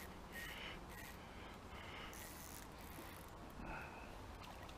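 Faint outdoor ambience: a few short, high chirps from small birds over a low, steady rumble of wind on the microphone.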